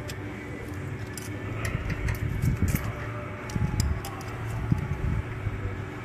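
Small metal clicks and clinks of a screwdriver and wrench working a rocker-arm adjusting screw and locknut while setting the valve clearance on an air-cooled VW engine. The clicks are scattered, over a steady low hum with a few dull thuds in the middle.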